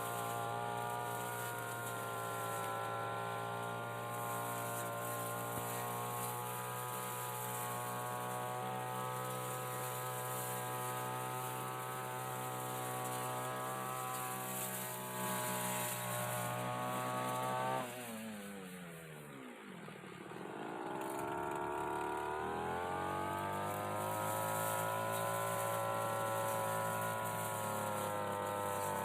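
Brush cutter engine running at high revs, then dropping sharply to idle about two-thirds of the way through and revving back up a few seconds later.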